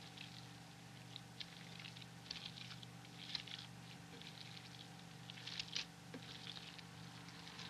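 Hands kneading and squeezing raw ground meat for meatloaf: soft, irregular wet squishing sounds, over a faint steady hum.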